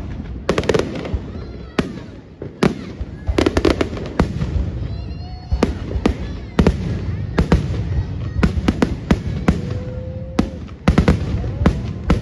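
Fireworks going off: an irregular series of sharp bangs and crackles, some in quick clusters, with a short whistling glide about five seconds in.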